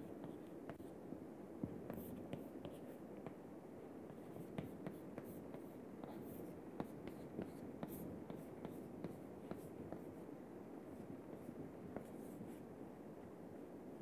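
Chalk writing on a chalkboard: faint, irregular taps and scratching strokes as a line of writing is put down, over low room noise.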